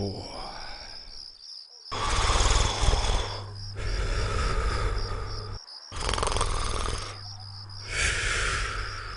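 Cartoon snoring: about four rasping snores, roughly one every two seconds, each with a low buzzing rattle. They sound over a steady, pulsing chirp of crickets.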